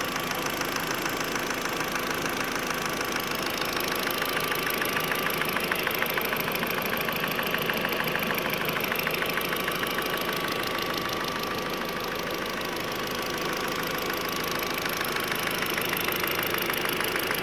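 VW 1.8T turbocharged four-cylinder engine running steadily with a fast, even ticking from a hydraulic lifter, caused by wear on the camshaft.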